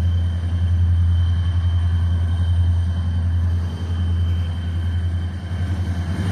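EMD two-stroke diesel locomotives working under load: a steady, heavy low engine rumble with the high, steady whine of their turbochargers above it.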